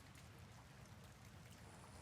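Faint soft rain: a steady hiss with scattered light drop ticks over a low rumble.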